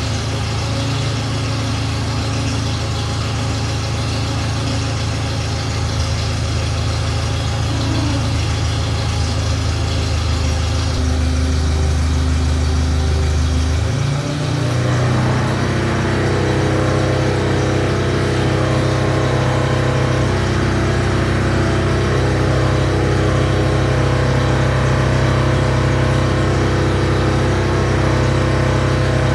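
A crane's engine running steadily while it hoists and tips a heavy engine block on its chain. About halfway through the sound changes abruptly to a higher, busier engine note.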